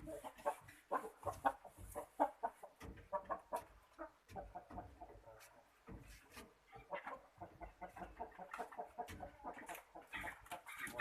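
A six-month-old chicken with a snoring respiratory illness giving short, irregular clucks and squawks while it is handled and its throat cleaned with an oil-dipped feather, with soft clicks and rustles from the handling.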